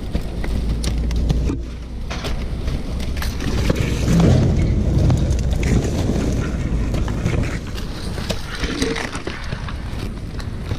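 Wind rumbling on a body-worn microphone, over repeated crackling and scraping of dry palm husk as a climber moves up the trunk on a rope flip line.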